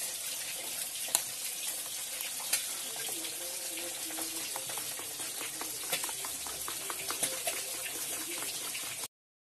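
A steel spoon stirring wet ground spice paste with water in a steel bowl: a steady wet hiss with scattered clicks of the spoon against the bowl. The sound cuts off suddenly near the end.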